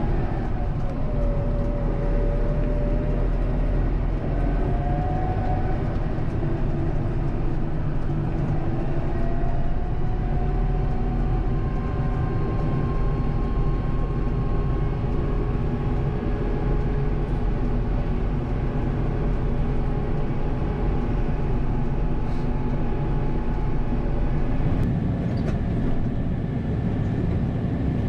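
Kubota M7060 tractor's four-cylinder diesel engine running steadily as the tractor drives, heard from the cab, its pitch drifting slightly up and down.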